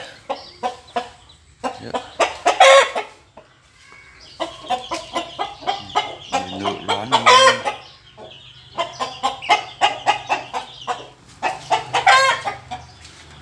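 Chickens clucking in quick runs of short calls, with three louder, longer calls rising over them: about two and a half seconds in, around the middle, and near the end.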